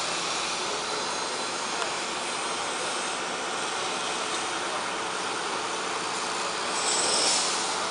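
Steady running noise of distant machinery, such as tractors and site equipment working a stadium's sand pitch, with a brief hissing swell near the end.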